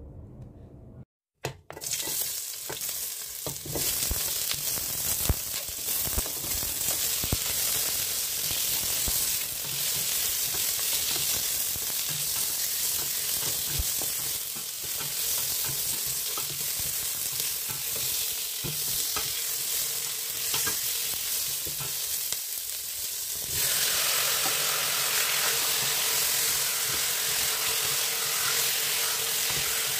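Onion and tomato pieces sizzling in oil in a stainless steel pot, stirred with a wooden spatula that clicks and scrapes against the pot. The sizzle starts about two seconds in and grows louder about 23 seconds in, as chicken pieces go into the hot pot.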